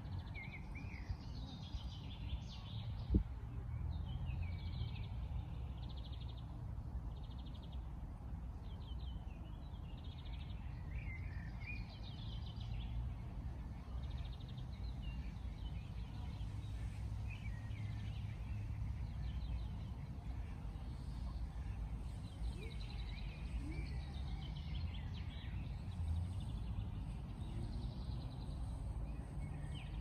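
Songbirds singing and chirping in short repeated phrases throughout, over a steady low rumble. A single sharp knock sounds about three seconds in.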